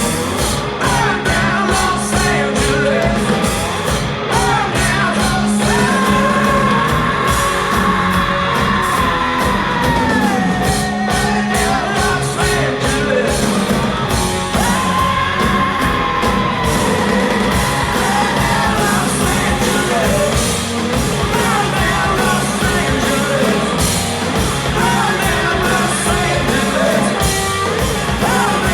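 Live rock band playing loud, with drums, distorted guitar and a male singer wailing two long held high notes, one several seconds in and one about halfway through.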